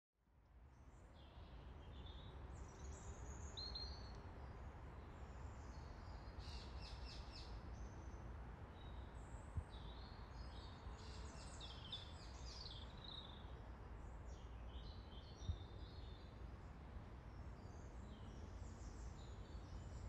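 Faint outdoor ambience of several small songbirds chirping and warbling over a steady low rumble, fading in at the start. Two brief clicks stand out, about ten and fifteen seconds in.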